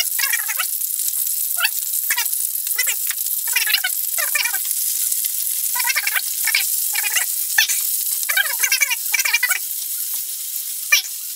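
Pork ribs and sliced onion sizzling in a frying pan, with a wooden spatula scraping and stirring through them in irregular strokes about once or twice a second.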